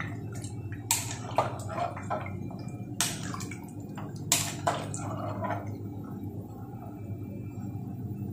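Steel spoon stirring soup in an aluminium pressure cooker: liquid sloshing, with a few sharp clinks of the spoon against the pot in the first five seconds.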